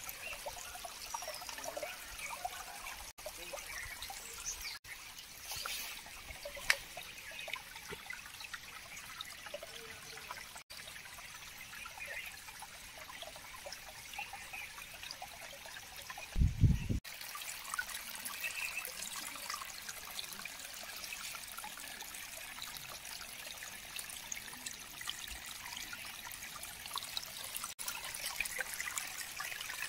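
Shallow stream trickling over rocks and pebbles, a steady light babble of water. A brief low thump about halfway through.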